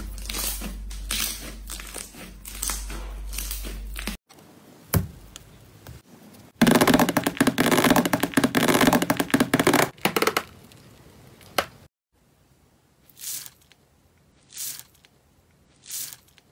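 Slime being squished and pressed by hand, crackling and popping from trapped air. About halfway through it turns dense and loud for a few seconds, then drops to a few soft, brief crunches about a second and a half apart.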